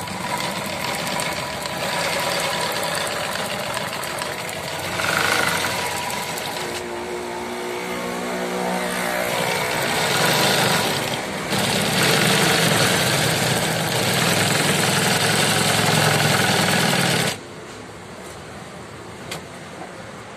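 Industrial sewing machine with a tape binder attachment running, stitching black binding tape onto the edge of a fabric piece, its speed rising and falling in stretches. It stops suddenly about three seconds before the end.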